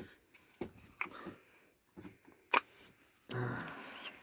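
Small clicks and taps from a knife and its plastic sheath being handled, with one sharper click about two and a half seconds in and a short rustle near the end.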